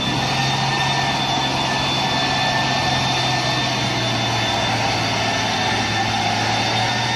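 Heavy diesel engine of a Mitsubishi Fuso tanker truck running steadily as the truck moves slowly along a muddy road, with a low, even hum.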